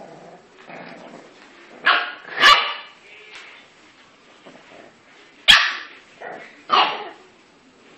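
English bulldog puppies barking in play: short, high barks, two in quick succession about two seconds in and two more later, with a few softer yaps between.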